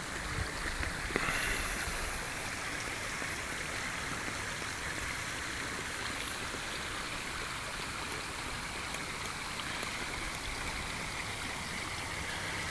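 Small shallow stream running over stones and shingle: a steady rush of water, briefly louder about a second in.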